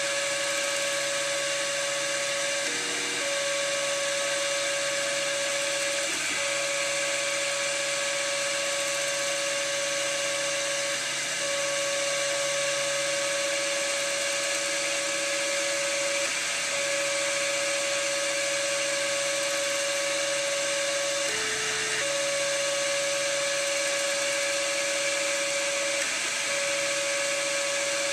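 3D printer running a print: its stepper motors give a steady whine that jumps to a new pitch every few seconds as the print head changes direction, over the steady whir of the extruder's cooling fan.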